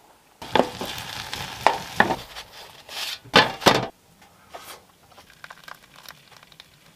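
Food sizzling in a pan while it is stirred, with several sharp knocks and scrapes of the utensil against the pan. It stops abruptly just before four seconds in, leaving only faint clicking.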